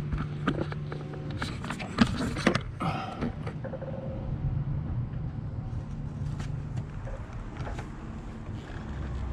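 A cluster of sharp clicks and knocks from hand work at the brake booster's check-valve grommet, followed by a few fainter ticks, over a steady low hum.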